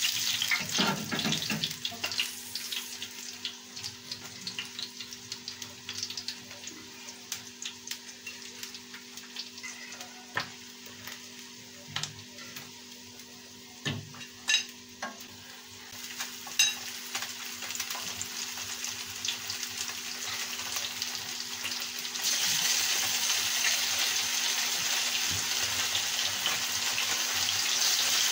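Breaded fish frying in hot oil in a pan: a steady sizzle with a few sharp clinks of a utensil on the pan. About two-thirds of the way through, the sizzle jumps louder and stays so as fresh pieces of fish go into the oil.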